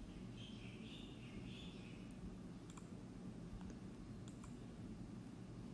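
A few faint, widely spaced clicks of calculator keys being pressed, over low room hiss.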